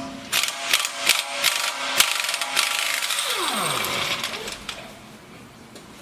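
Power wrench working on a bolt on a truck's front suspension: a run of sharp clicks and rattling, then the tool winding down with a falling whine about three to four seconds in, followed by light metal ticks.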